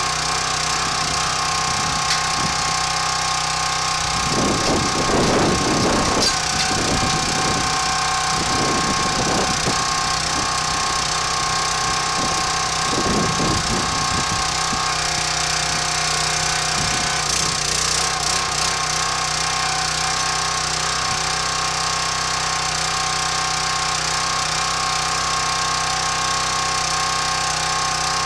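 Small gas engine of a 25-ton hydraulic log splitter running steadily, with a few louder, rougher spells in the first half as the splitter is worked.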